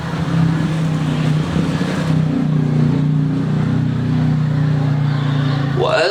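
A male qari's melodic Quran recitation: his voice holds a long, low note, then about six seconds in it climbs steeply into a high phrase.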